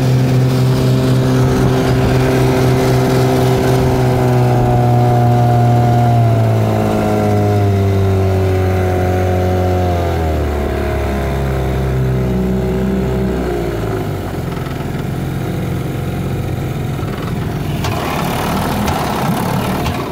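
1951 Evinrude Fleetwin 7.5 hp two-cylinder two-stroke outboard running steadily at speed. From about six seconds in, its pitch falls in steps as the engine slows, and it settles to a low rumble for the last few seconds.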